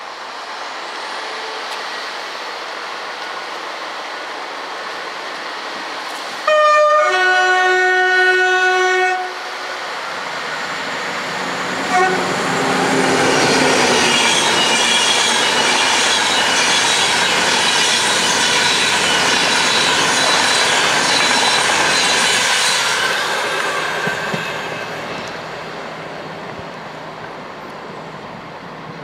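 A train horn sounds two notes, a brief higher one and then a lower one held for about two seconds. A train then passes through at speed, its running and wheel noise building up, holding loud for about ten seconds with a high whine in it, then fading away.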